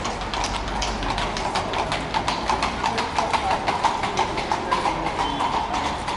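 Hooves of two horses clip-clopping on the street as they pull a Viennese fiaker carriage past at a trot, in a quick, uneven run of strikes.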